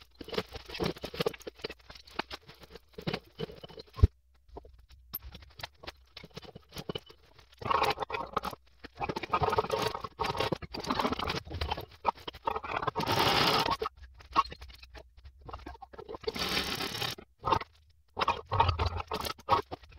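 Hand tools and metal parts being worked on the underside of the engine while the replacement starter motor is fitted: irregular bursts of scraping and rapid clicking, some lasting a second or more.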